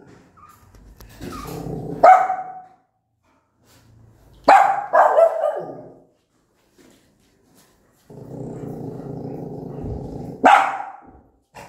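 Angry nursing mother dog barking sharply four times, two of them in quick succession. A low growl builds into the first bark and a long, steady growl leads into the last.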